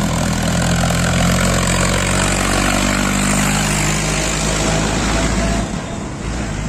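Diesel tractor engine hauling a loaded sugarcane trolley passes close by, its pitch falling as it goes past, then dropping away about five and a half seconds in.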